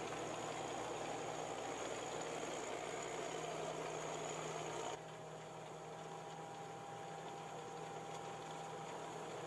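Tracked combine harvester running while cutting grain: a steady engine drone mixed with the rushing noise of the threshing machinery. About halfway through the sound changes abruptly to a slightly quieter, more even drone.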